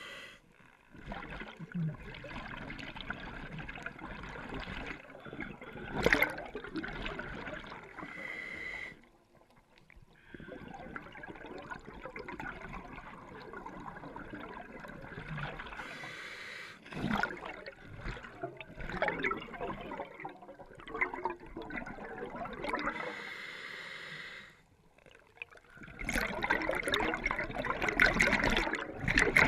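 Scuba diver's breathing heard underwater: the regulator's hiss and bursts of exhaled bubbles, with a few brief pauses.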